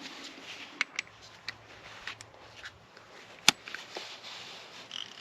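Metal hand tools clicking and snapping together as a socket, swivel and extension are fitted onto a ratchet: several sharp, irregular clicks, the loudest about three and a half seconds in.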